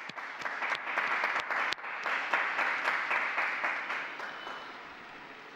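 Large crowd applauding, a dense patter of many hands clapping. It swells within the first second and slowly dies away toward the end.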